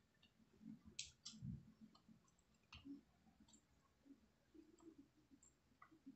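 Faint eating sounds: a few sharp little mouth clicks and soft smacks from someone chewing a mouthful of rice and fish eaten by hand.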